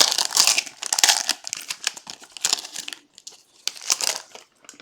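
Trading-card pack wrapper being torn open and crinkled by hand, dense crackling for about three seconds and a last short burst of crinkling about four seconds in.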